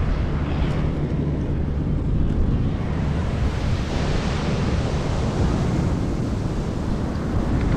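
Wind buffeting the microphone over the steady wash of ocean surf, with a broader swell of surf hiss about three to five seconds in.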